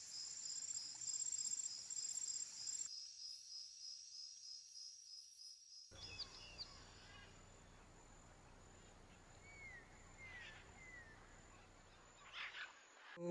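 Insects shrilling steadily with a high, pulsing trill. About six seconds in this gives way to quieter outdoor ambience with a few short, falling bird chirps.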